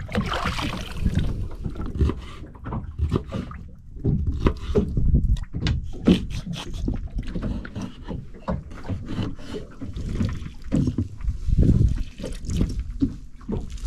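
Water sloshing and lapping against the hull of a small boat, with scattered knocks and clicks from things being handled on deck.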